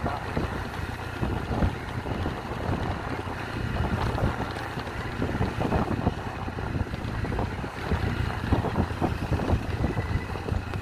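Wind buffeting the microphone on a moving motorcycle, over the low, steady drone of its engine.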